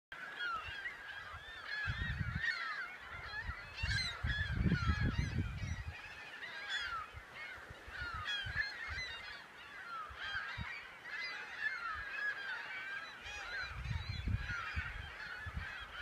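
A large feeding flock of gulls calling continuously, many overlapping high cries and squeals at once, with intermittent low rumbles underneath.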